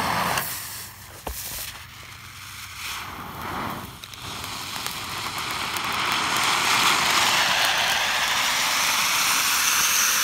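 Pyro Root Beer firework fountain: a lit fuse burns quietly for a few seconds, then about four seconds in the fountain catches and sprays with a steady hiss that builds and stays loud, a high-pitched hiss strengthening near the end.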